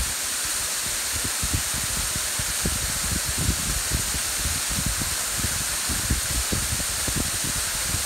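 Waterfall streaming down a rock face and splashing into a pool, a steady hiss of falling water. Wind buffets the phone's microphone throughout in irregular low rumbling gusts.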